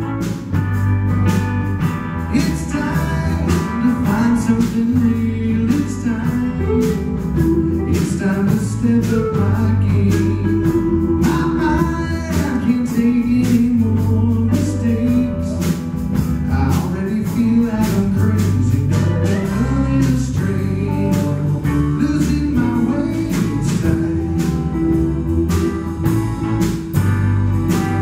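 Blues band playing live: guitar, bass guitar, drums and keyboard, with a steady drum beat.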